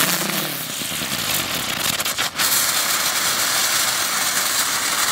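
Mercury colour-changing butterfly firecracker burning and dancing: a loud, steady hiss that breaks off for a moment about two seconds in.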